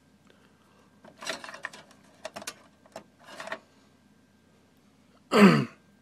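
A few light plastic clicks and rustles as hands handle DDR2 memory sticks and slot clips inside a desktop PC case. Near the end a man clears his throat once, the loudest sound here.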